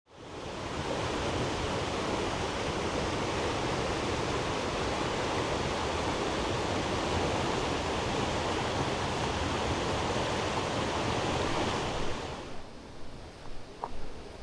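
Rushing water of a mountain stream, a steady even wash of noise that fades in at the start and drops away suddenly about twelve seconds in, leaving quieter, uneven sounds and a brief faint tone.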